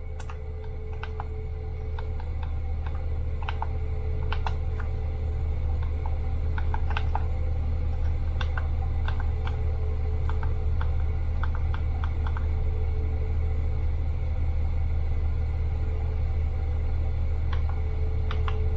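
A steady low rumble that grows louder over the first few seconds, with scattered clicks of mechanical keyboard keys being pressed, singly and in short runs, on a Magic-Refiner MK11 keyboard.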